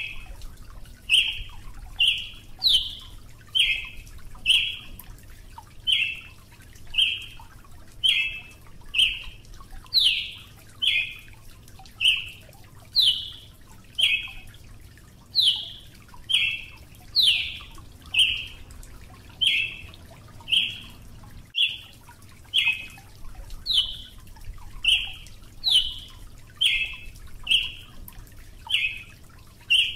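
Brazilian tanager (Ramphocelus bresilius) calling: a sharp, clipped note repeated about once a second. Some notes slur downward from a higher pitch.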